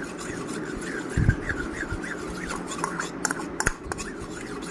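Homemade slime being handled and scraped, with a few small clicks and a dull thump about a second in.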